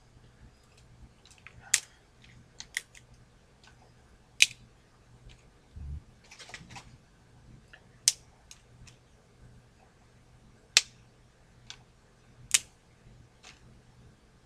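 Dry wood being handled for a fire lay: sharp single snaps and clicks every two to three seconds, with a dull thump about six seconds in.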